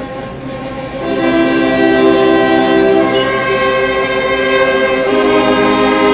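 Orchestra and wind band playing an instrumental overture: held chords that swell louder about a second in and move to a new chord about five seconds in.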